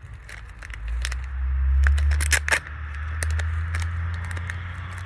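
Handling noise from fishing tackle being picked up for a hook: scattered sharp clicks and scrapes, a tight cluster of them about halfway through, over a low rumble that starts about a second in.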